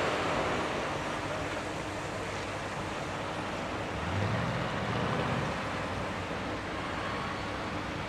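Steady wind rushing past the microphone, with a low rumble swelling briefly about four seconds in.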